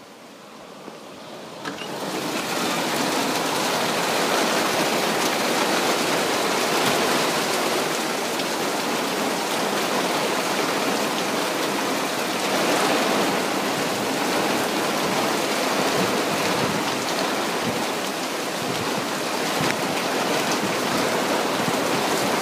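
Torrential rain of a tropical storm pouring down: a loud, steady hiss that comes up from faint to full over the first two seconds.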